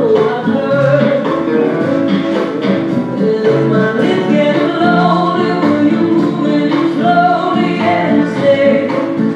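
A recorded song with a singer, played as the music for an East Coast Swing dance.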